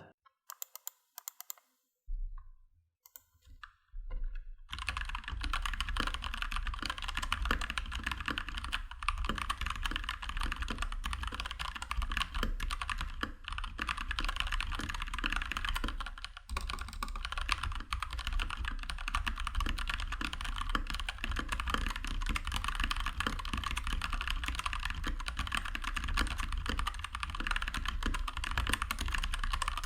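Keychron K2 V2 hot-swappable mechanical keyboard being typed on in its stock state, with unlubed switches and factory stabilizers: a few scattered keystrokes, then from about four seconds in a fast, continuous clatter of key clicks. This is the keyboard's out-of-the-box typing sound.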